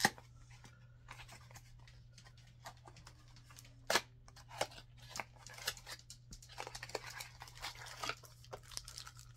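Small cardboard product box being handled and opened, with a few sharp clicks and then dense crinkling of plastic wrapping near the end.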